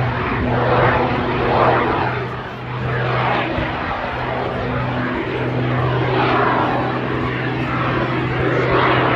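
Propeller engine of an unlimited-category aerobatic aircraft running through a display sequence. A steady low tone briefly drops out a few times, under a wash of engine noise that swells and fades every second or two as the aircraft manoeuvres.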